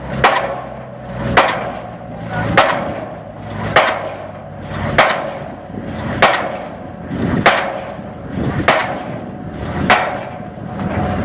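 Pile driver hammer striking a pile at a steady pace, one sharp ringing blow a little more than once a second, about nine blows in all.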